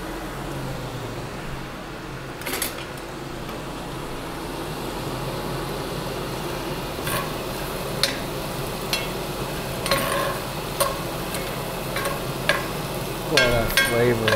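Diced onion sizzling in oil in a cast-iron skillet, with a metal spatula scraping and clinking against the pan as it is stirred, about once a second in the second half.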